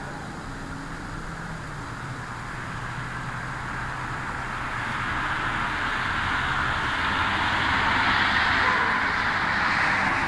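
A car approaching along the road, its tyre and engine noise growing steadily louder over several seconds above a low engine hum.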